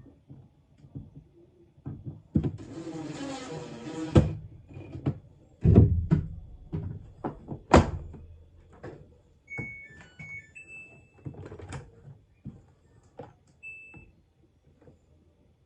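Samsung washing machine being handled: a run of knocks and clicks with a hiss of about two seconds early on, then short electronic beeps from the control panel, a few in quick succession and one more later.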